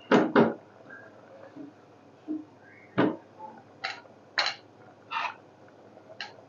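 A few scattered short, sharp clicks and knocks around an aluminium cooking pot of thick simmering mung dal: two close together at the start, then single ones every half second to a second.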